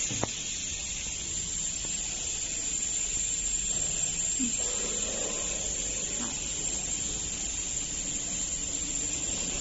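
Steady, even hiss throughout, with a few faint light rustles and clicks around the middle.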